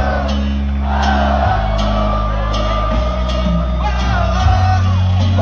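Live cumbia band playing loud through a PA, with heavy bass and a lead singer holding long sung notes into a microphone.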